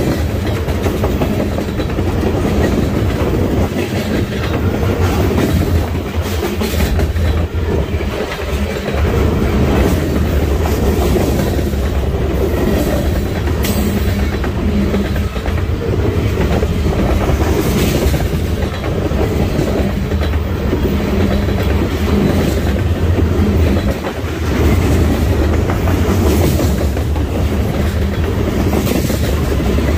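Freight train rolling past, a steady loud rumble of railcars with the wheels clicking over the rail joints.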